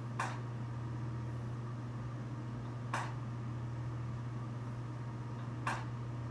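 Steady low machine hum, with three short clicks evenly spaced nearly three seconds apart.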